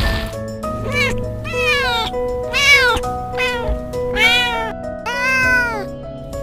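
Kitten meowing repeatedly, a string of drawn-out meows that each rise and fall in pitch, over background music with held notes.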